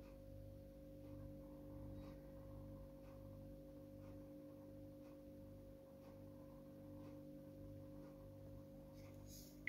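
Near silence: faint steady electrical hum of room tone, with a soft low throb pulsing at an even rate, and a couple of faint clicks near the end.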